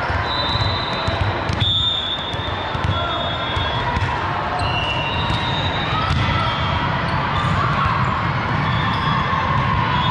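Gym sounds during a volleyball match: sharp knocks of balls bouncing and being struck on a hard court, with short high squeaks, over a steady murmur of voices in the hall.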